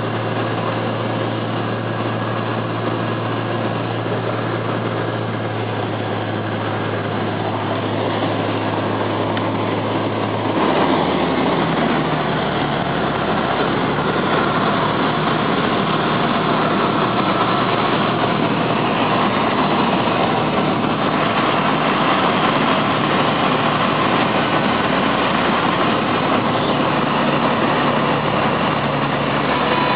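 Single-engine seaplane's propeller engine running, heard from inside the cabin during the descent and landing on the river. About ten seconds in, a steady low hum gives way to a louder, rougher engine and propeller sound.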